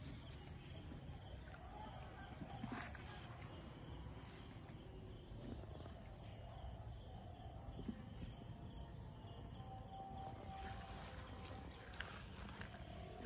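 Insects chirping in a steady rhythm, about two short high chirps a second, over a faint steady outdoor background.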